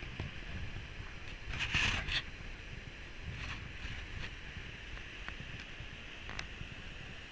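Steady rush of a rocky mountain stream, with wind rumbling on the microphone. About one and a half seconds in comes a brief, louder clatter of clicks, and a few faint single ticks follow.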